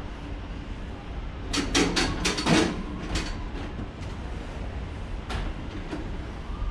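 Clicks and knocks of a Ferris wheel cabin's door and of people boarding, bunched about a second and a half in, over a steady low rumble.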